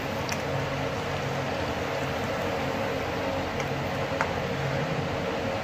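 Hot frying oil in a kadhai on a gas stove sizzling and bubbling steadily, with a couple of faint ticks.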